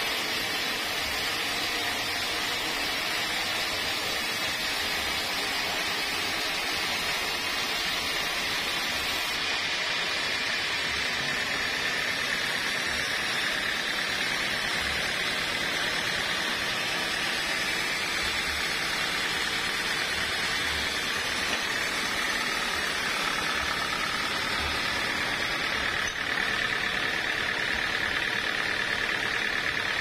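Band sawmill blade cutting lengthwise through a waru gombong log: a steady, high-pitched sawing rush whose tone drops slightly near the end.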